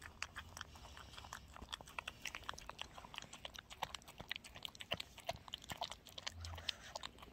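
Dog eating chicken porridge from a bowl: quick, irregular wet lapping and chewing clicks.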